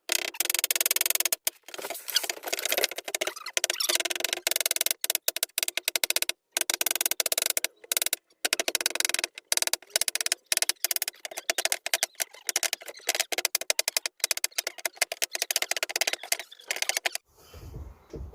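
Music with a busy percussive beat.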